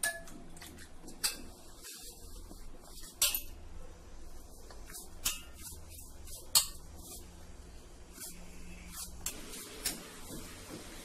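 Hand-kneading of hot rice-flour dough in a stainless-steel plate, with irregular sharp metallic clinks as the hands knock against the steel, the loudest about six and a half seconds in.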